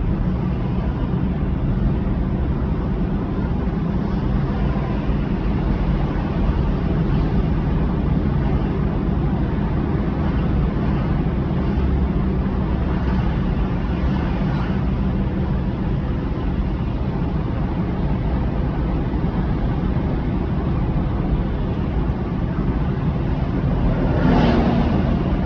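A car driving, with steady engine and road noise and no change in pace. Near the end a brief louder swell passes.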